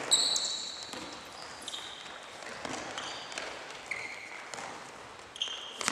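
Indoor sports shoes squeaking on a wooden gym floor as players run and turn: about five short, high squeaks, the longest right at the start, with a few light thuds of feet and ball in between.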